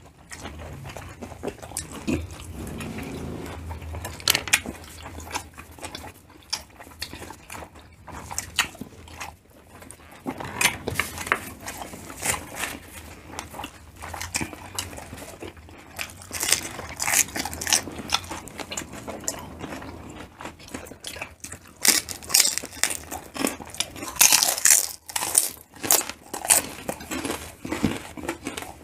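Chewing and biting of grilled pork intestine (tumbong) pulled off bamboo skewers, with many crisp crunches that come thicker and louder in the second half.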